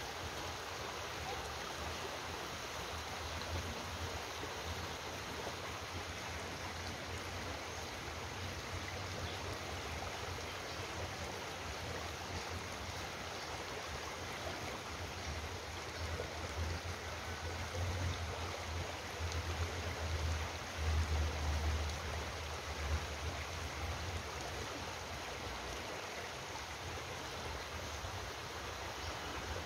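Steady rushing of a flowing stream, with a low rumble that grows louder for several seconds in the second half.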